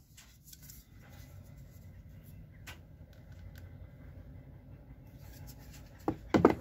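A plastic cordless-tool battery pack being handled: faint rustling with a few small clicks, then a couple of louder knocks near the end as it is set down into a hard plastic tool case.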